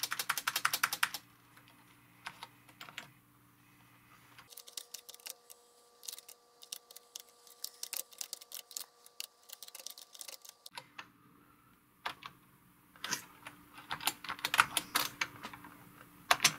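Keystrokes on a Tandy TRS-80 Model 200 laptop's keyboard: bursts of quick plastic key clicks with short pauses between, a keyboard working normally.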